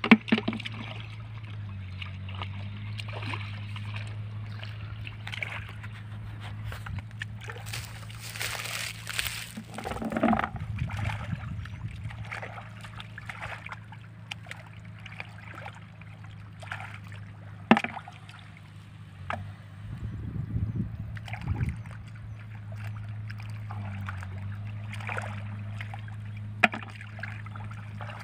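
Hands groping and sloshing in shallow muddy water, with a few sharper splashes, over a steady low engine hum.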